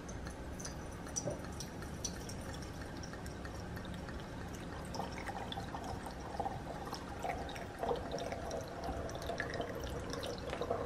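Red wine poured from a bottle through an aerating funnel into a glass decanter: a steady trickle and splash of liquid with small drips, growing stronger about halfway through as the stream picks up.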